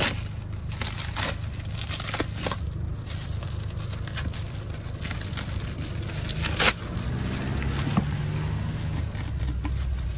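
Clear plastic stretch wrap being peeled and pulled off a flat cardboard package, crinkling and crackling irregularly, with one sharp snap about two-thirds of the way in. A steady low rumble sits underneath.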